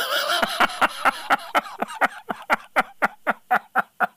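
A man laughing hard: a long run of short, even bursts of breath, about five a second.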